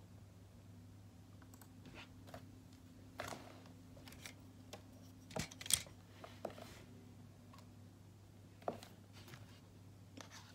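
Scattered light clicks and taps from small objects handled at a desk, about ten in all, the loudest a little past the middle, over a steady low electrical hum.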